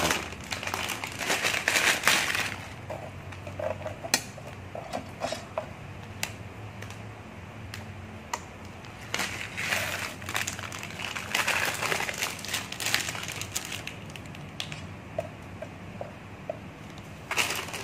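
Plastic instant-noodle packet crinkling and crackling as it is handled and emptied, in bursts during the first two seconds and again around ten to thirteen seconds in, with scattered small clicks and taps between. A steady low hum runs underneath.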